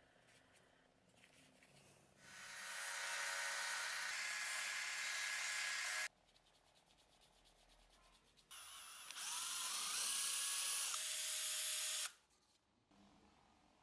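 Electric belt-and-disc sander running with a flat workpiece pressed against its sanding disc: a steady grinding hiss over a motor whine, heard twice, about four seconds each, and each cut off abruptly.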